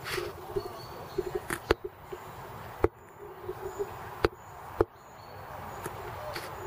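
A few sharp wooden knocks, spread out about a second apart, as mouflons climbing up on a wooden-post fence strike it with their hooves.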